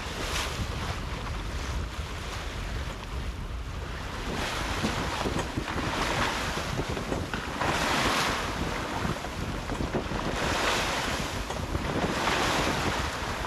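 Wind buffeting the microphone over water rushing and splashing past the hull of a small sailing boat under way. From about four seconds in, the water noise rises and falls in swells every two seconds or so.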